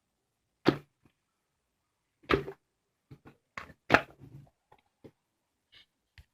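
A series of irregular sharp taps and knocks, about a dozen in all, with dead silence between them; the loudest come under a second in, about two and a half seconds in and about four seconds in.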